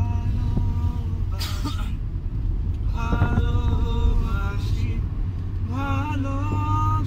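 Two men singing in a moving car's cabin, three held, wavering phrases over the steady low rumble of the engine and tyres on the road.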